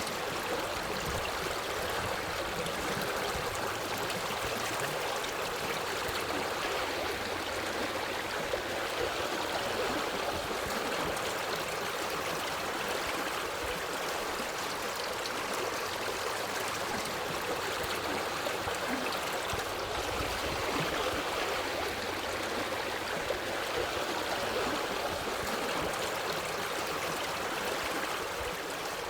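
Forest stream flowing steadily: an even, unbroken rush of water with no pauses or changes.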